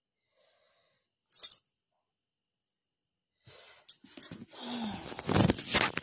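About three seconds of silence broken by one short click; then close rustling, knocking and breathing as the phone is handled near the microphone.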